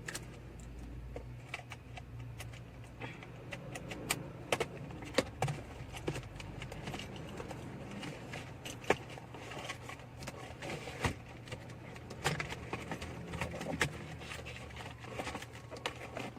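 Scattered clicks and light knocks of plastic parts and connectors as a car's air-conditioning control module is fitted into the dashboard, over a steady low hum.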